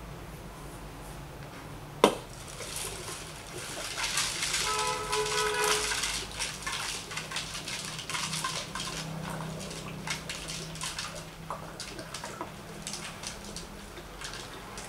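Water gurgling as it drains through the joined necks of two plastic bottles in a homemade water clock, with small plastic beads in the water clicking and ticking against the plastic. A sharp knock about two seconds in, with the glugging and clicking busiest a few seconds after it.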